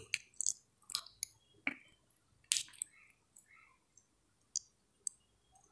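Faint, scattered clicks and small handling noises, about a dozen spread unevenly over the pause.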